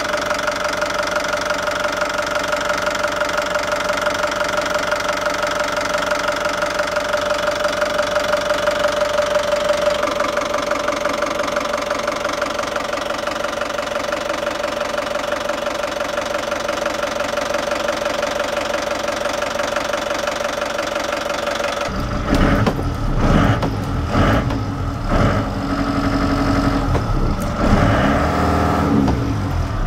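Volvo Penta marine inboard engine running steadily at idle, heard close up in the open engine compartment. From about 22 seconds in, irregular low buffeting on the microphone joins the engine sound.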